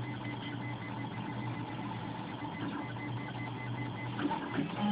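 Wood-framed RepRap Mendel 3D printer printing: its stepper motors whir and buzz in a quick repeating pattern as the print head and bed move back and forth, over a steady low hum. The movements get louder, with a few clicks, near the end.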